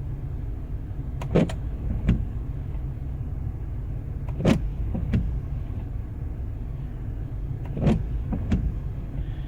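Car windscreen wipers sweeping across the glass, giving a short squeak or grate at each stroke. The strokes come in pairs about every three seconds over a steady low rumble. The blades are fairly new and started grating like this when the weather turned cold.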